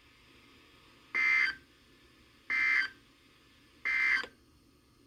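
Three short bursts of Emergency Alert System SAME digital data tones, the end-of-message code that closes the warning broadcast. Each burst lasts under half a second, and they come about 1.3 seconds apart.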